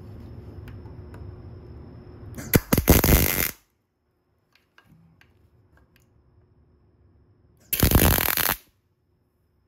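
Arc welding on a steel motorcycle frame mount: two short bursts of crackling arc, each about a second long, the first about two and a half seconds in and the second near the end, over a faint steady background hum.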